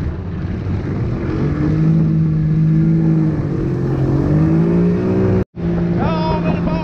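Yamaha 25 hp outboard motor running under throttle to kick up waves, its pitch climbing slightly over the first five seconds. The sound drops out for a moment about five and a half seconds in, then the motor runs on steadily.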